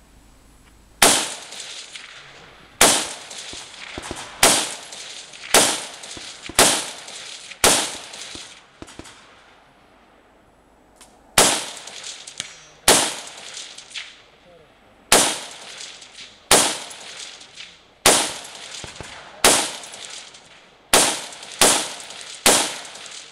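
A rifle fired from the prone position, about fifteen shots spaced a second or two apart, each trailing off in an echo. There is a pause of about three and a half seconds partway through the string.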